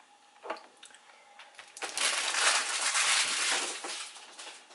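Thin plastic sheet from a refrigerated pie crust being crumpled by hand, a dense crinkling for about two seconds that starts near the middle and fades out.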